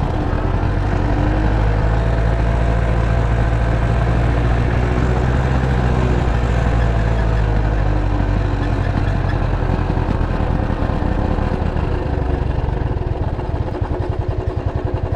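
Motorcycle engine running steadily while riding, with a heavy low rumble that drops away about twelve seconds in.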